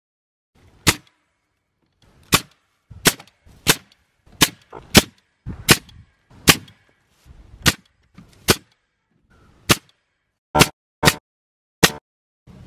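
Bostitch pneumatic framing nailer firing nails into the lumber of a wall frame: about fourteen sharp shots, unevenly spaced half a second to a second apart.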